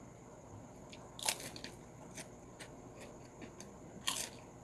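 Crisp prawn crackers (keropok) bitten into with a loud crunch about a second in and again near the end, with smaller crunches of chewing in between.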